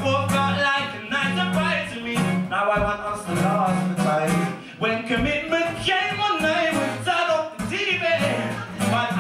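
Male vocalist singing live with sliding, held notes over instrumental accompaniment that holds steady low bass notes.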